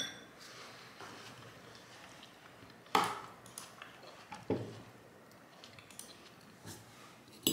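Metal fork clinking against a white ceramic bowl, a few separate sharp clinks, the loudest about three seconds in and another just at the end.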